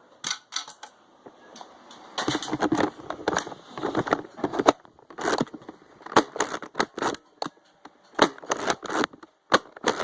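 Irregular sharp plastic clicks and knocks from Nerf blasters and dart magazines being handled, some coming in quick clusters.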